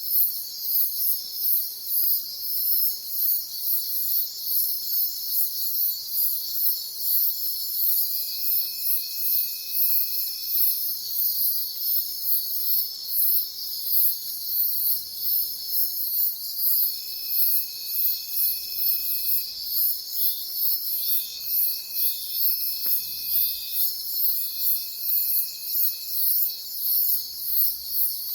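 Chorus of crickets or similar insects: a continuous high buzz that pulses rhythmically, over a steadier trilling band. A few long, steady high whistles sound in the second half.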